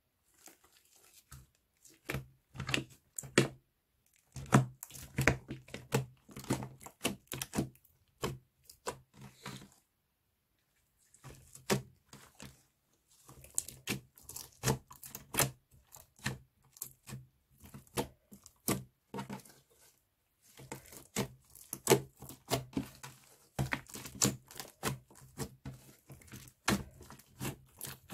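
Slime being squished and mixed, giving quick runs of sticky clicks, pops and crackles, broken by a couple of short pauses.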